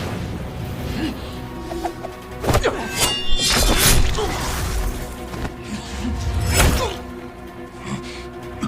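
Dramatic background music broken by sudden crash sound effects, with a shattering, glassy crash about three seconds in and another heavy hit near the end.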